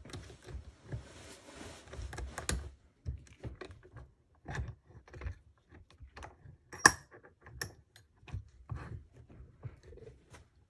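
Light metallic clicks and scrapes of a pick working the pins in the keyway of a drilled Ultion 3-star euro cylinder, with one sharp click about seven seconds in.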